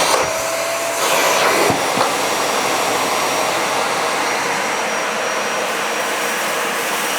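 Dyson Ball Animal 3 upright vacuum cleaner running on a hard floor with its brush roll switched off: a steady rush of suction airflow with a thin high whine, and a few light knocks about a second in.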